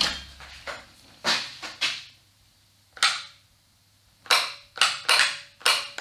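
Short separate clunks and rattles, about nine in six seconds, as a large Makita angle grinder is lifted off a workbench and handled; no steady motor noise.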